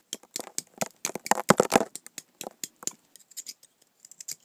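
Knife blade scraping and chipping at a chunk of ice, a rapid run of short scrapes and clicks, densest about a second and a half in.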